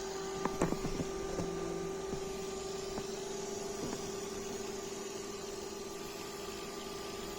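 Desktop PC tower running, its fans and power supply giving a steady hum, with a few light clicks about half a second in. The machine has power but no display signal.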